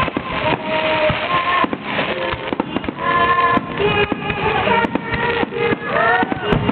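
Fireworks popping and crackling in quick succession, with music playing at the same time.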